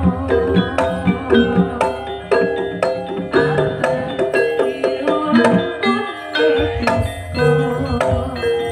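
Javanese jaranan gamelan music: bronze metallophones ringing a repeating melody of struck notes over a steady pattern of kendang hand-drum strokes.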